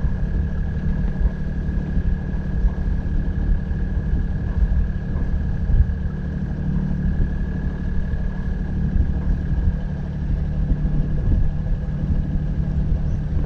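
Sailboat's inboard engine running steadily under motor at low speed: a continuous low drone with a thin steady whine above it.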